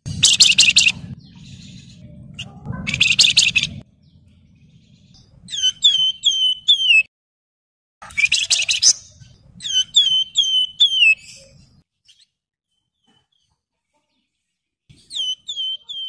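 Wergan Jawa (flamboyan) songbird singing: harsh rattling bursts three times, alternating with phrases of four or five clear, downslurred whistled notes.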